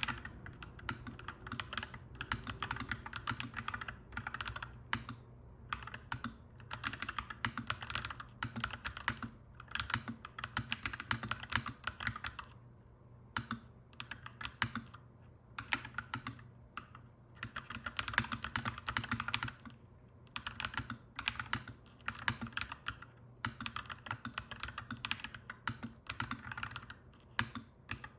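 Clacky mechanical keyboard typing: quick runs of keystrokes lasting a second or two, broken by short pauses.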